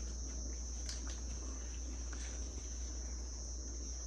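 Night insects chirping, crickets among them: one steady, unbroken high trill with a higher, shorter chirp repeating about every half second.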